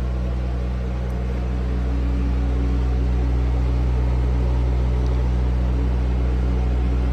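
Steady low mechanical hum made of several even tones, getting slightly louder about two seconds in.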